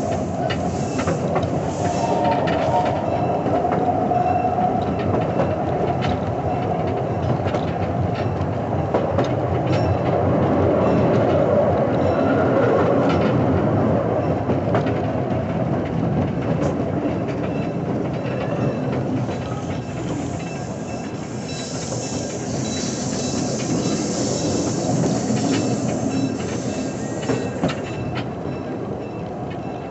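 Small park railroad train rolling along the track, a steady rumble with wheels clicking over rail joints. A brighter high hiss comes in for several seconds past the middle.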